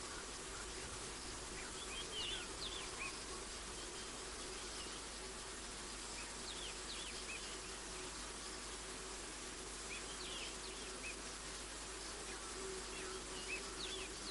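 A small bird calling a short burst of quick, high chirps four times, about every four seconds, over a steady hum and hiss of evening insects.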